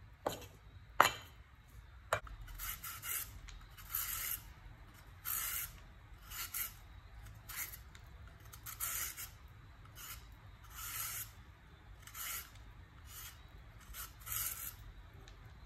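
A cleaver strikes a wooden cutting board three times, then a hand-held shredding peeler scrapes down a carrot, cutting it into thin strips with short scraping strokes about once a second.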